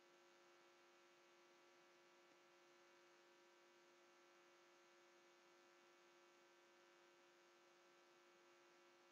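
Near silence with a faint, steady electrical hum in the recording.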